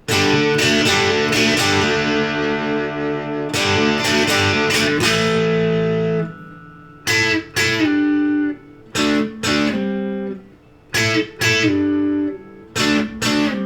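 Telecaster-style electric guitar with both pickups on (middle pickup-selector position) played through an amp's overdriven channel: ringing distorted chords for about six seconds, then short, choppy chord stabs with brief gaps between them.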